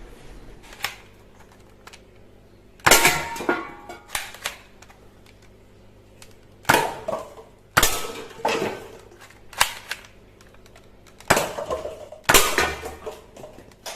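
Toy gun snapping and firing: about eleven sharp plastic cracks at uneven intervals, each with a brief ringing tail.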